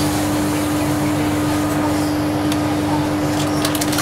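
Steady hum inside a Class 318 electric multiple unit carriage: one unchanging tone over a bed of rumbling noise.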